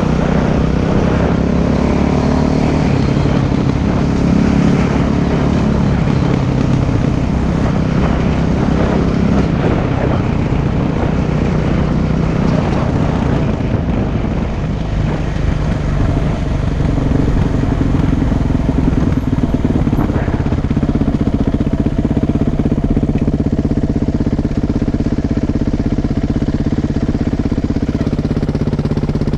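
Dirt bike engine running under way on a gravel road, its note rising and falling with the throttle. About two-thirds of the way through it settles into a steadier, even note.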